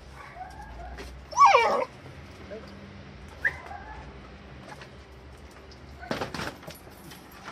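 A dog gives one loud yelping whimper about a second and a half in, then a brief higher whine about two seconds later, while it is being handled on a leash. Some rustling and clicking follows near the end.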